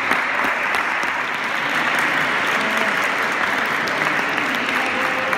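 Spectators clapping steadily, with faint voices calling.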